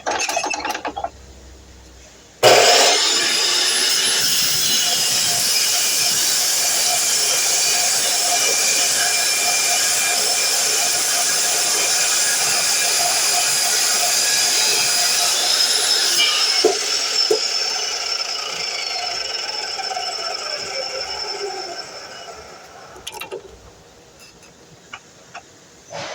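DeWalt miter saw's motor spinning up with a rising whine about two seconds in, running steadily for about fourteen seconds, then winding down with a falling pitch after the trigger is released.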